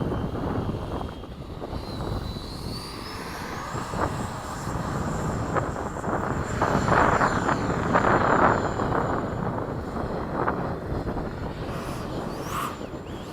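Electric ducted fan of a Freewing 70mm F-35 RC jet, driven by a brushless inrunner motor, whining; the whine climbs in pitch about two to three seconds in as the throttle opens, then holds high for several seconds.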